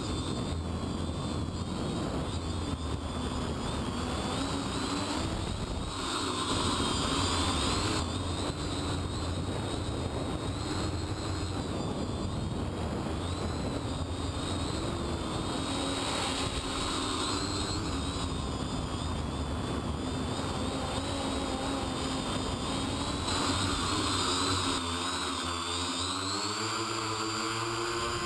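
X525 quadcopter's motors and propellers whining steadily as it flies, heard from the camera on its own frame along with wind noise. The pitch wavers as the motors change speed and rises and falls more widely near the end.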